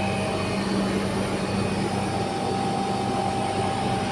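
21,000 BTU outdoor condensing units of a cold-room refrigeration system running: compressors and condenser fans making a steady low hum with a faint whine above it.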